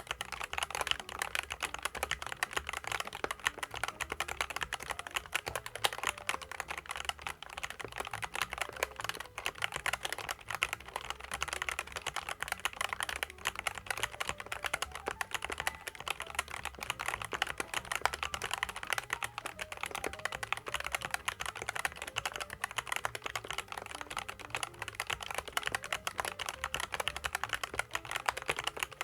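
Continuous fast typing on a SKYLOONG GK75 mechanical keyboard with SKYLOONG Optical Yellow switches and PBT keycaps: a rapid, unbroken stream of keystroke clicks.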